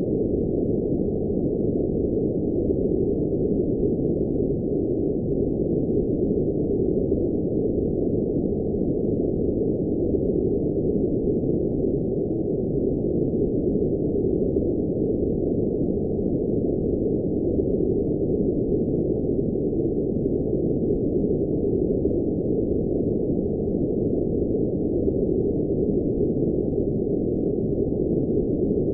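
Steady generated background noise, a dull, muffled hiss with no high end, holding an even level without any change.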